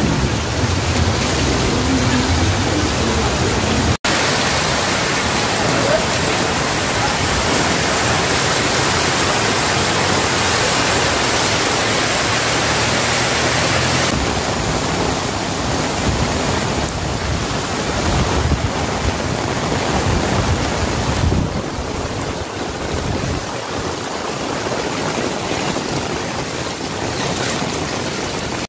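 Floodwater rushing and splashing, a loud steady wash of water noise, broken by a short dropout about four seconds in.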